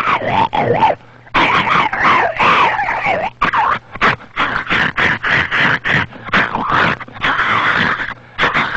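A cartoon man's voice yelping and howling in pain again and again, in short, shrill, wavering cries. He is being bitten on the backside by the crunch bird.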